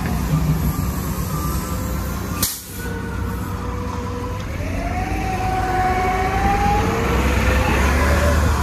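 Orion VII hybrid-electric city bus pulling away: low engine rumble under the hybrid drive's whine, which rises slowly in pitch as the bus accelerates over the last few seconds. A sharp click sounds about two and a half seconds in.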